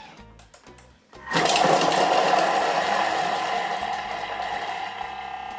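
Kitchen robot (Thermomix-type) blades chopping onions at speed 5: the motor starts abruptly about a second in, a steady whine with a dense chopping noise that runs on and slowly eases.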